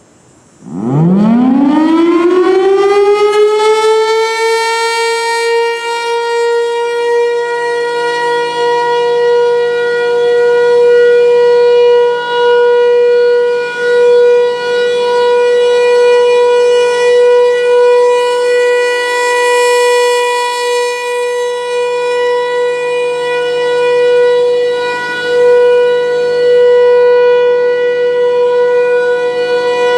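Federal Signal Thunderbolt 1000 single-tone siren starting up about a second in, its pitch winding up quickly and then holding one steady tone: the alert signal of a siren test. The loudness swells and dips every few seconds as the rotating head turns.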